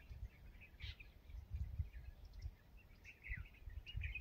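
Birds chirping faintly in short scattered calls, over intermittent low rumbling.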